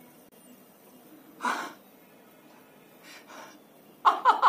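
Non-speech vocal sounds: a sharp gasp about a second and a half in, a couple of faint breaths, then a quick string of about five short vocal cries near the end.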